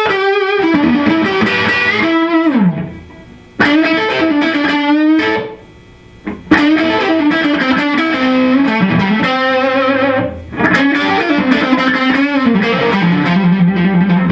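Fender Stratocaster with single-coil pickups played straight into an all-tube amp, with no pedal in the signal path: lead phrases with string bends and vibrato, in four runs broken by short pauses. A reasonably fat Strat tube tone.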